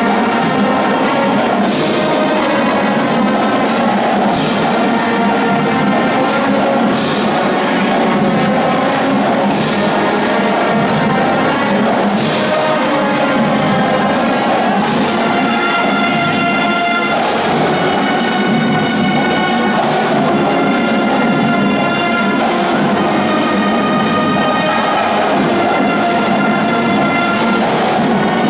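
Marching band playing a loud, steady-beat tune: brass (trumpets, trombones, sousaphones) and woodwinds (flutes, clarinets) over a drumline of snare and bass drums.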